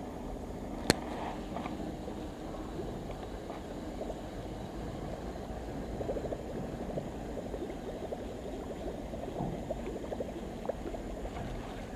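Baitcasting reel retrieving a lure after a cast: a sharp click about a second in as the reel engages, then steady winding with faint ticks and light water sounds.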